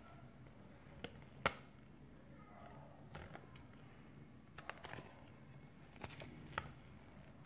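A folded paper checklist leaflet being unfolded and handled: scattered soft crackles and snaps of paper, the sharpest about a second and a half in, over a faint low hum.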